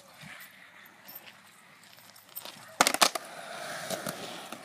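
Skateboard: a quick run of sharp clacks from the board about three seconds in, then its wheels rolling steadily on concrete.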